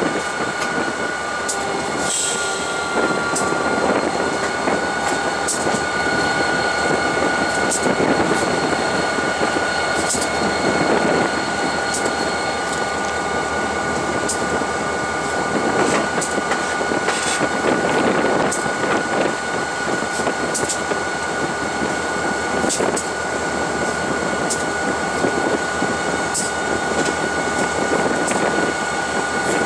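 Diesel locomotive running, heard from inside the cab: a steady mix of engine and running noise with a constant high whine and scattered sharp clicks, typical of wheels passing over rail joints.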